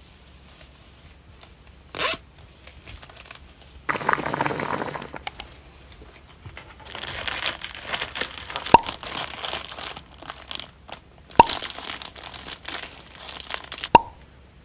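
Hands crinkling and rustling a crinkly material in several handling bouts, with three sharp clicks spaced a few seconds apart.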